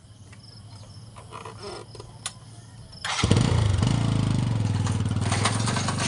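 Motorcycle engine of a sidecar tricycle starting about three seconds in, then running steadily.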